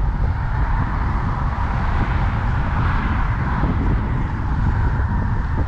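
Wind rumbling on the microphone, with tyre noise from traffic on the neighbouring highway bridge; the traffic hiss swells briefly in the middle as a car passes.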